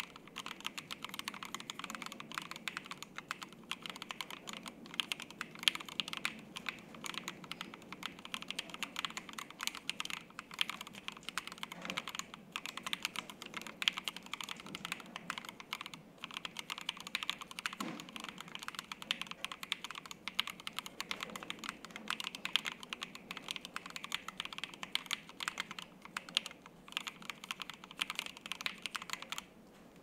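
Continuous typing on a Piggy 60% gasket-mount mechanical keyboard with stock Water King switches, dye-sub PBT keycaps and a leaf-spring polycarbonate plate: a steady, dense stream of keystrokes with a few heavier strokes mixed in. The typing stops briefly just before the end.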